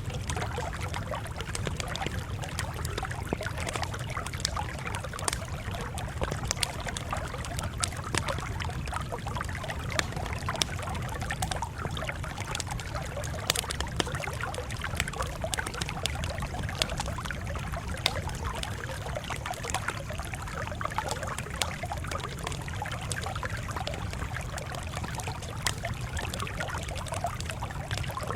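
Campfire crackling, with frequent small, sharp pops scattered over a steady low rumble.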